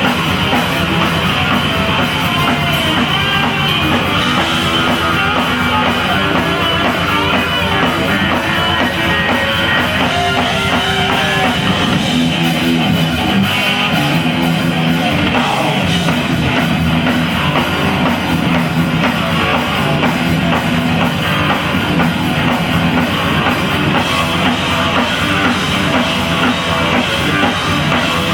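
Live hard rock band playing: loud, distorted electric guitar, bass and drum kit, recorded from the audience.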